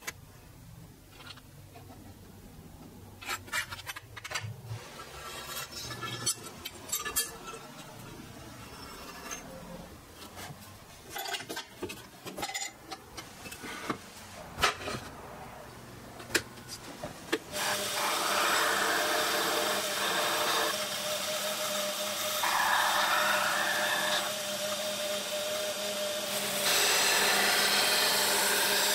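Scraping and clicks of hand tools on a mild steel knife blank, then about 18 seconds in a belt sander starts running with a steady hum. It grows louder in stretches as the karambit blade is pressed to the belt to grind the swedge.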